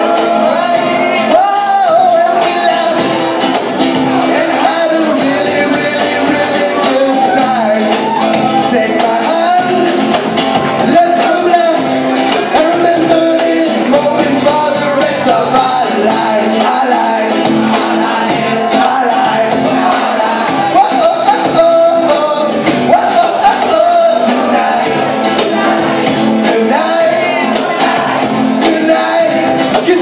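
Live band playing a rock song: a singer over electric guitar and cajón, loud and steady throughout, with very little bass.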